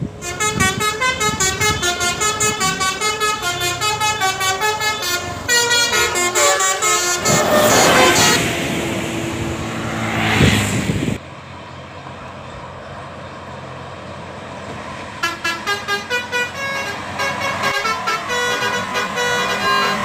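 Bus 'telolet' multi-tone horn playing a fast tune of quick changing notes, then a loud rising and falling rush of a passing bus about seven to eleven seconds in. The sound drops off abruptly about halfway through, and the horn tune starts again about fifteen seconds in.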